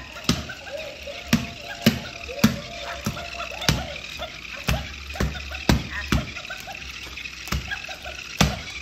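Irregular sharp knocks and taps on a hardwood floor, roughly one or two a second, as a Moluccan cockatoo handles a plush crab toy, dropping and dragging it and stepping about.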